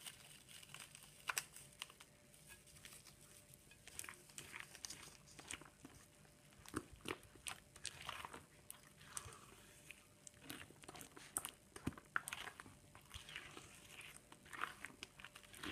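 A bare hand squelching through thick, wet cake batter in a glazed clay bowl, working the flour in: quiet, irregular wet squishes and little slaps with no steady rhythm.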